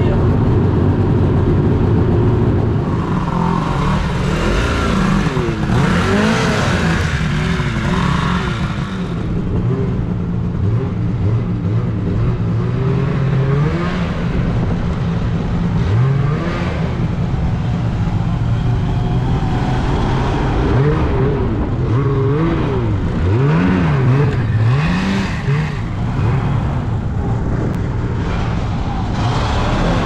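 Snowmobile engines running, revved up and down several times.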